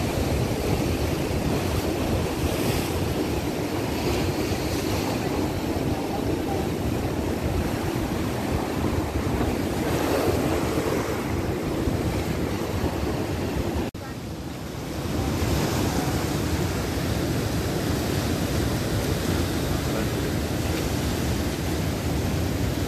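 Ocean surf breaking and washing against the rocks and pier below, a steady rushing, with wind buffeting the microphone. The level dips briefly about fourteen seconds in.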